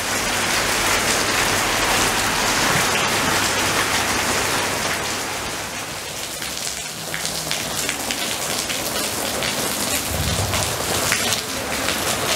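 Heavy rain pouring down: a steady hiss of the downpour on wet paving and water, with many sharper close drips and splashes in the second half.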